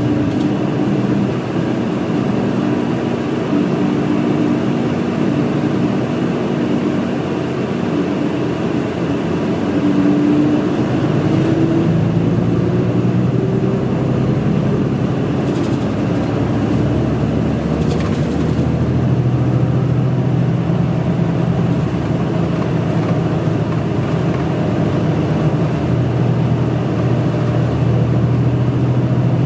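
City route bus heard from inside the passenger cabin, its engine and drivetrain running steadily under way. About ten seconds in, a rising whine climbs in pitch over several seconds as the bus picks up speed, then it settles into a steady low drone.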